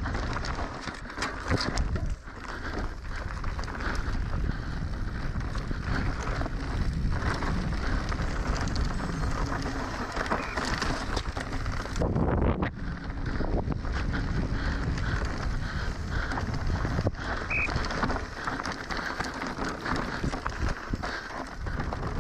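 Mountain bike descending a rough trail at speed: tyres rolling over dirt and rock, with frequent clatter and knocks from the bike, under steady wind rushing over the camera's microphone.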